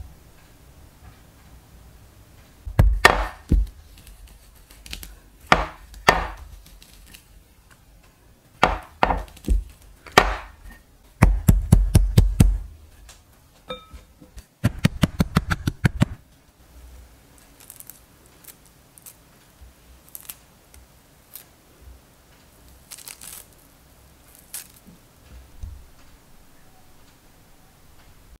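A wooden rolling pin beating peeled deodeok roots on a wooden cutting board to flatten and loosen them before they are shredded. Scattered heavy thuds give way about halfway through to two quick runs of rapid tapping, then a few faint light knocks.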